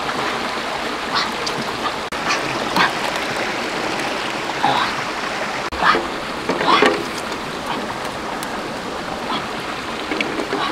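Steady rush of a flowing stream, with several brief splashes and sloshes of water as a hand stirs eggs in a pan of water.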